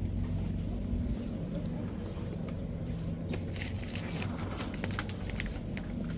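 Steady low hum of a shop's background, with a run of light clicks and rustles from groceries being handled about halfway through.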